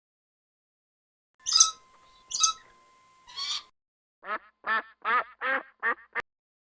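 Animal calls: after a short pause, three loud, shrill calls, then a quick run of about six short calls, each falling in pitch.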